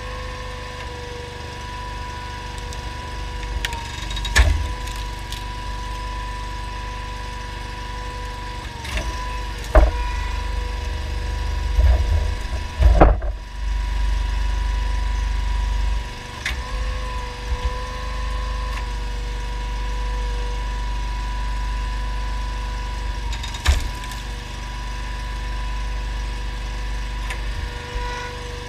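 Homemade hydraulic log splitter with a Honda GX690 V-twin engine running steadily, with a steady whine over its low rumble. Several sharp cracks and thumps of logs splitting and pieces falling come through, the loudest about 13 seconds in, after which the engine runs louder for a few seconds.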